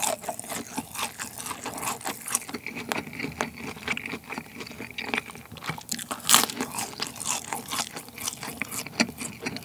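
Chicken McNuggets being bitten and chewed close to the microphone: the crisp fried batter crunches and crackles in a steady stream of small crackles. One louder crunch comes about six seconds in.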